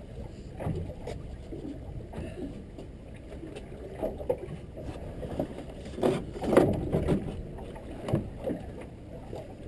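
Water slapping against the hull of a small boat drifting with its engine quiet, under a steady low rumble. Short knocks and thuds of handling on deck come now and then, the loudest cluster about six seconds in.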